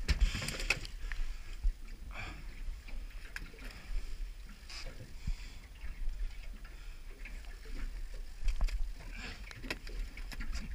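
Water slapping and lapping against the hull of a small aluminium boat, with wind buffeting the microphone and scattered light knocks and clicks.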